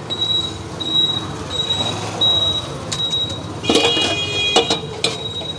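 Stainless steel pot lid and utensils clattering at a street-food stall. There are a few sharp metal knocks near the end, the first with a brief ringing.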